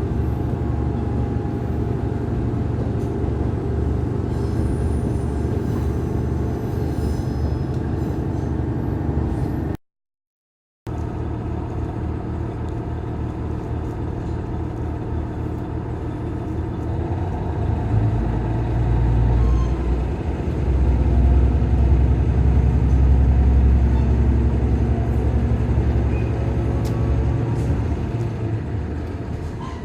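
Diesel railcar running with a steady low engine and running-gear rumble, growing louder from a little past halfway and easing near the end. The sound cuts out completely for about a second about a third of the way in.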